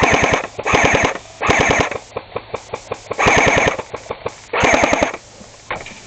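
Airsoft gun firing five rapid full-auto bursts, each under a second, with a few single shots cracking between them.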